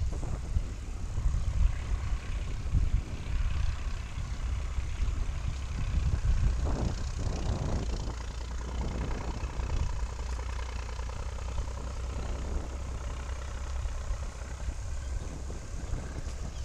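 Riding a bicycle on an asphalt lane: wind buffeting the microphone and the tyres rumbling on the road, a steady low rumble that swells and bumps unevenly.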